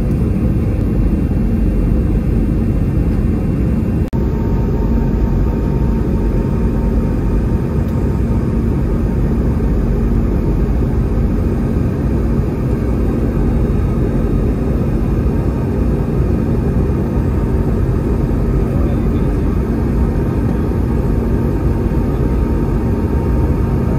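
Steady cabin noise inside an Airbus A320neo in flight: the deep, even rumble of the engines and rushing air, with a constant hum. A faint higher tone joins about four seconds in.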